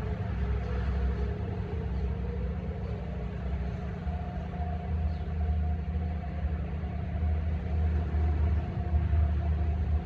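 Distant outdoor warning sirens sounding faint, steady tones that overlap and drift slowly in pitch, a higher one coming in about four seconds in. A loud, low, uneven rumble lies under them.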